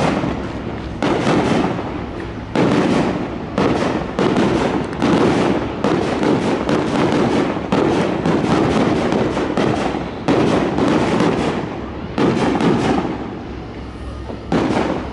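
Aerial fireworks display: a run of loud shell bursts, about one every second or so, each starting suddenly and fading out before the next.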